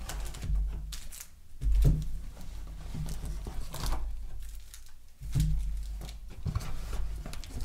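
Waxed-paper baseball card packs rustling and clicking as they are lifted out of a cardboard box by the handful and set down in stacks on a table, with a few dull thumps.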